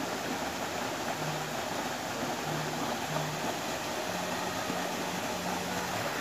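Steady rush of a small river's water pouring over rocks in shallow rapids and a little cascade, a constant even hiss.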